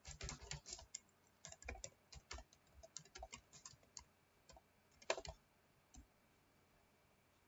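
Typing on a computer keyboard: a quick run of keystrokes for about five seconds, with the loudest key press near the end of the run and one last click about a second later.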